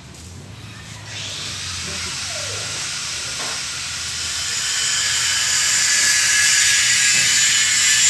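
Electric arc welding: a steady hiss that starts about a second in and grows louder around halfway through.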